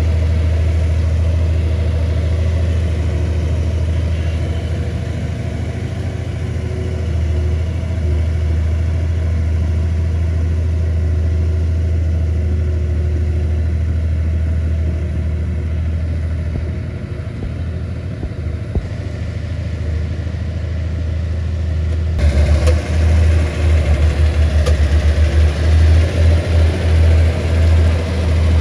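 Komatsu bulldozer's diesel engine running with a steady low drone. About three-quarters of the way through it turns abruptly louder, with a rapid uneven throbbing in the low end.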